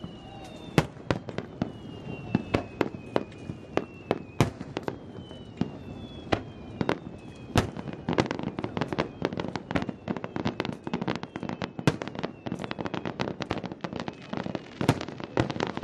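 Fireworks display bursting: a series of sharp bangs, with high whistling tones sliding down in pitch through the first half. About halfway in, the bangs thicken into a rapid crackling barrage.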